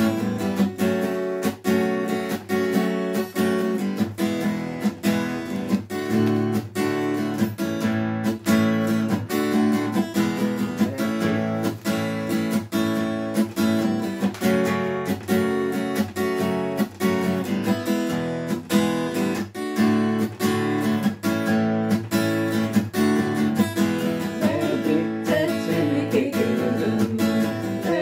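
Acoustic guitar strummed in a steady, even rhythm, playing chords.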